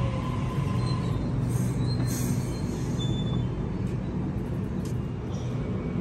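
Sydney Trains double-deck electric passenger train standing at the platform, a steady low electrical hum coming from its equipment. A few brief high squeaks and hisses sound over the hum.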